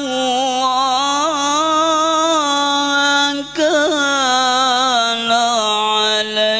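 A man chanting Qur'an recitation in a slow, melodic style through a microphone. He holds long drawn-out notes with ornamented turns and takes a short breath a little past halfway.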